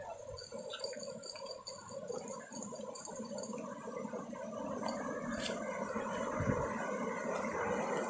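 Flowing water gurgling and splashing, growing slowly louder toward the end.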